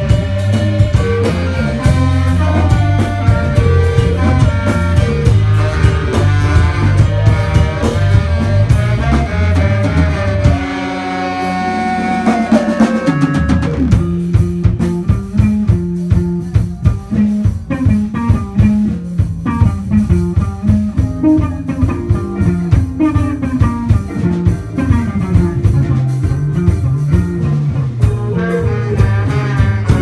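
Live instrumental band playing: horns (saxophone, trombone, trumpet), electric guitar, bass, synthesizer and drum kit. About ten seconds in the bass and drums drop out for a short break of held notes. Then a sparser drum-and-bass groove comes back, and the band fills out again near the end.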